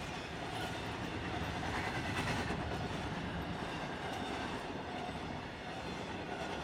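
Double-stack intermodal freight train rolling past, its loaded container well cars running steadily on the rails with a continuous wheel-and-rail rumble.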